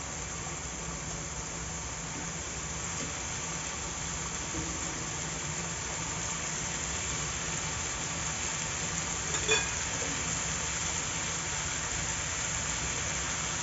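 Masala-coated chicken pieces frying in hot oil on a tawa over a high gas flame, a steady sizzle that grows slightly louder. One short knock about two-thirds of the way through.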